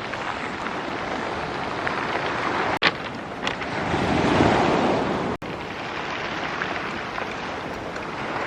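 Sea surf washing onto a beach, a wave building to its loudest about halfway through, with wind buffeting the microphone. The sound drops out for an instant twice.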